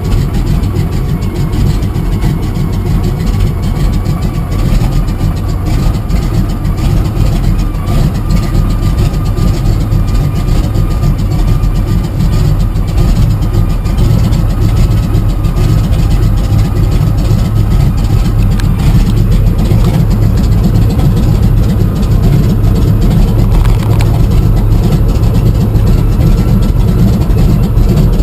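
Floatplane's piston engine running steadily after start-up, getting a little louder about halfway through.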